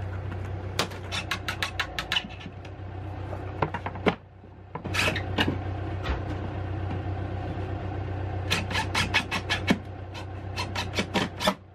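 Cordless impact driver driving screws into a plywood panel in several short bursts of rapid clicking impacts, over a steady low hum.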